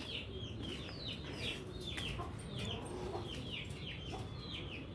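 Birds chirping: a steady run of short, high-pitched calls that fall in pitch, two or three a second, with a few fainter lower calls among them.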